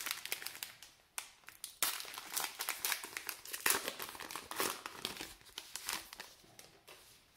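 Foil wrapper of a 2012 Topps Gypsy Queen baseball card pack being torn open and peeled apart by hand, crinkling and crackling irregularly, with a short pause about a second in and dying away near the end.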